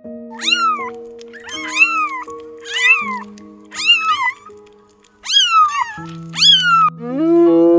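A cat meowing: six short meows about a second apart, each rising then falling in pitch, then a longer, lower meow near the end that rises as it goes. Soft background music with sustained notes plays underneath.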